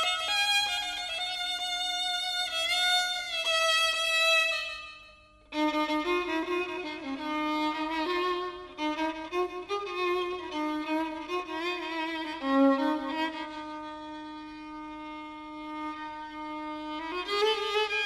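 Solo violin playing a Persian classical melody in Avaz-e Isfahan, with ornamented, wavering notes. The phrase fades out about five seconds in, and a new, lower phrase begins straight after.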